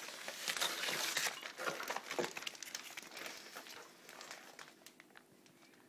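Wrapping paper crinkling and rustling as a child handles a wrapped present, busiest in the first couple of seconds and dying away toward the end.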